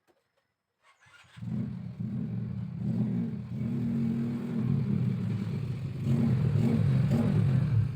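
A low-pitched motor running steadily, starting abruptly about a second and a half in and swelling slightly as it goes.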